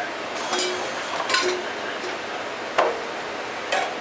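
Four short clinks and knocks of kitchen utensils and cookware being handled, over a steady hiss.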